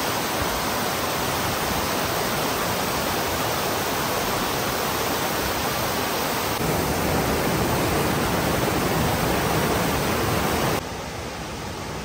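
Steady rush of a waterfall and of stream water pouring over rocks. It gets louder about six and a half seconds in and drops back near eleven seconds.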